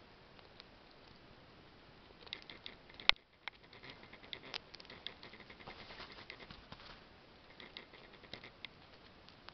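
Red squirrel gnawing a nut held in its paws: runs of quick, fine crunching and scraping clicks that start about two seconds in, with one sharp, loud click shortly after, and a shorter run near the end.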